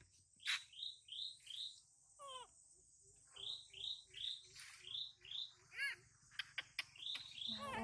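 Chickens calling: runs of short high peeps, each falling in pitch, about two or three a second, over soft, regular low clucks, typical of a hen with chicks. One lower, drawn-out falling call comes about two seconds in.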